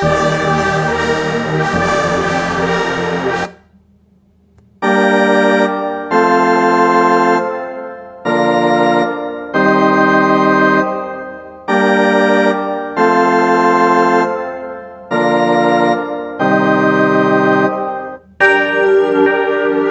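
R&B music cues: a dense passage cuts off about three seconds in, then an organ-like keyboard plays eight slow held chords in pairs, each fading before the next; another piece starts near the end.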